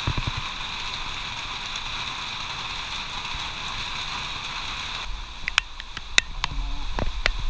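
Heavy rain falling, a steady hiss. About five seconds in it changes abruptly to lighter rain with sharp drip-like clicks and a low rumble.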